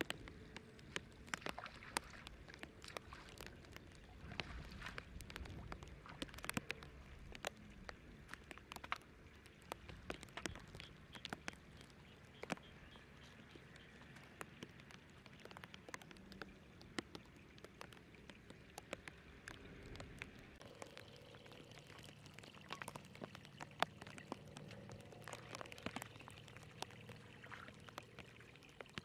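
Faint pattering of water drops and small splashes in wet grass and mud: scattered sharp ticks over a low hiss.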